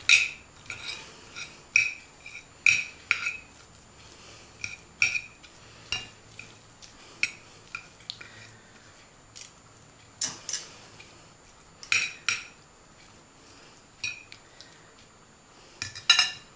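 Two metal forks clinking and scraping against a ceramic plate as slow-cooked pork tenderloin is pulled apart. Irregular sharp clinks with a short ringing note, some single and some in quick clusters.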